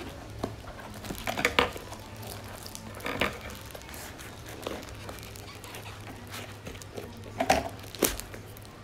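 Packaging crinkling and rustling as it is handled, in a few short irregular bursts, the loudest about a second and a half in and near the end.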